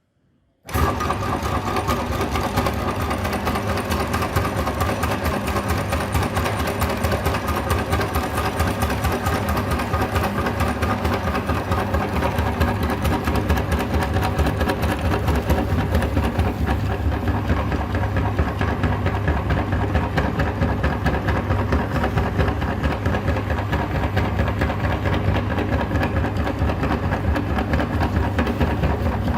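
Electric meat grinder switched on about a second in, its motor then running steadily with a low hum and a fast even rattle.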